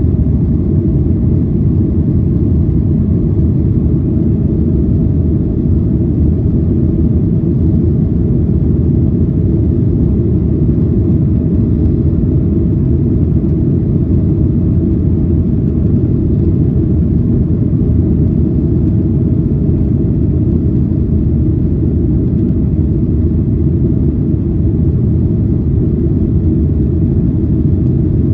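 Boeing 737-800 airliner noise: a loud, steady low rumble that holds level without rising or falling.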